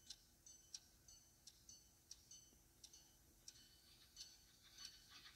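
Near silence with faint, quick ticking, about three ticks a second.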